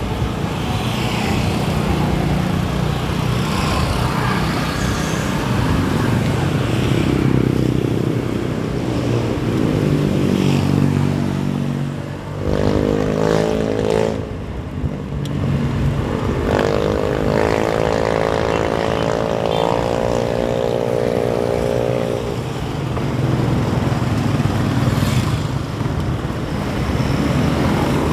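Steady rushing wind and road noise from riding a bicycle, with small motorcycle engines passing: a short pass about halfway in and a longer drone soon after that fades near three quarters of the way through.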